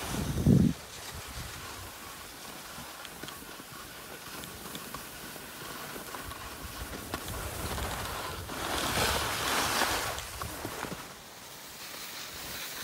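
Skis sliding and scraping over packed snow, with wind rushing over the microphone, while skiing downhill. A short low thump comes just after the start, and the rushing swells louder for a couple of seconds in the second half.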